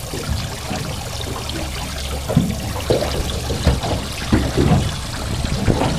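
Water jetting and splashing into a boat's live well as a trout is moved about in it by hand, with a few louder splashes.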